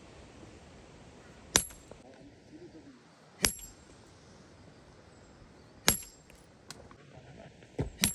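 Sharp metallic strikes with a brief high ring, five of them about two seconds apart, the last two in quick succession: metal striking metal.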